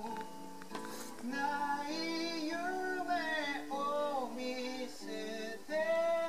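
A song playing on a television: voices singing over acoustic guitar.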